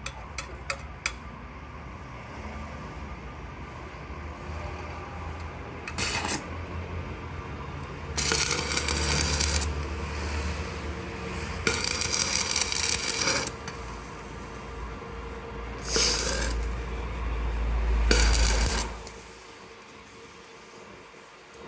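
Metalwork on a steel shaft: metal clinking and scraping, with four loud rushing bursts a second or two long and a low rumble underneath that fades out near the end.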